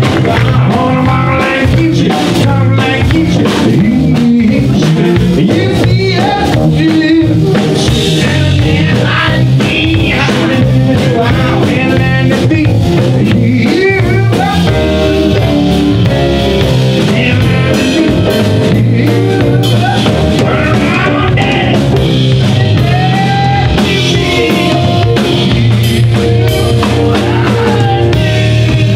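Live blues-rock band playing: a man singing over keyboard, electric guitar, bass guitar and drum kit.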